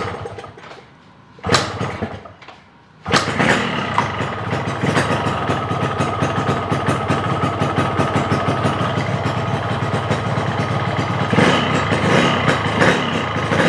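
Cold two-stroke motorcycle engine being kick-started: a kick at the start and another about a second and a half in fail to catch, and on the third kick, about three seconds in, it fires and runs at a steady idle. It runs a little louder near the end.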